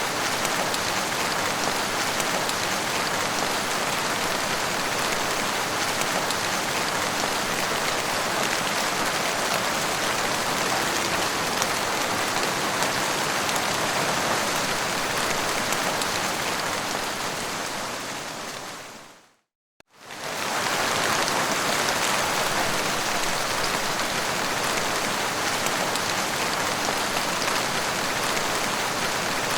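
Heavy rain falling in a steady, even hiss. About two-thirds of the way through it fades out to a brief silence and fades straight back in.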